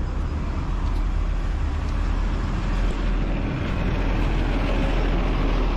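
Motor vehicle running: a steady low engine and road rumble with no let-up.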